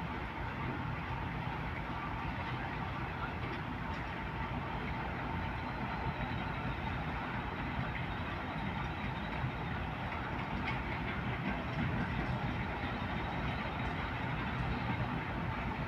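Class 08 diesel shunter's English Electric six-cylinder diesel engine running steadily, with a faint steady whine over the engine note and a slight rise in loudness near the end.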